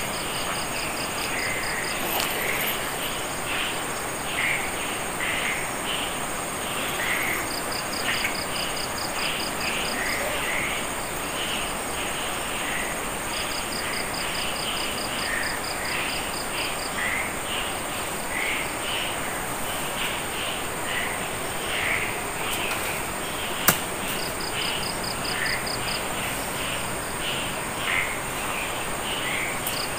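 Night insect chorus of crickets: a continuous high steady buzz, with short bursts of rapid even pulsing that come back every few seconds, and scattered chirps underneath. One sharp click about two-thirds of the way through.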